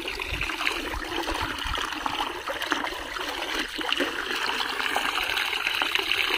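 Shallow muddy water sloshing and splashing steadily as hands grope through it for fish, with many small splashes.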